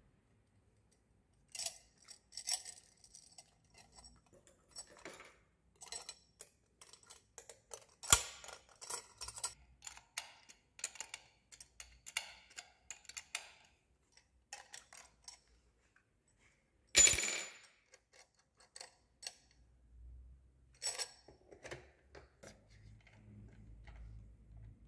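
Parts of a sewing machine's two-way cotton stand, plastic spool discs and metal arm and rods, handled and fitted by hand: scattered clicks and taps, a sharp knock about eight seconds in, and a louder rattling clatter around seventeen seconds in.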